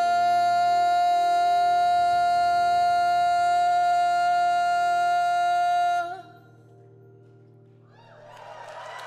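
A long held final note, sung over a sustained band chord, ends the song with a clean cutoff about six seconds in. After a short hush, audience applause begins to rise near the end.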